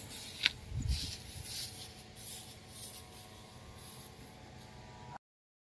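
Faint rustling and rubbing with a single click about half a second in, over a faint steady hum; the sound cuts out to silence shortly before the end.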